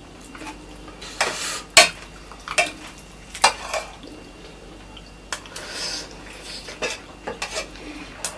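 A metal spoon scraping and clinking against a metal plate of rice: scattered short clinks and scrapes, the loudest just under two seconds in.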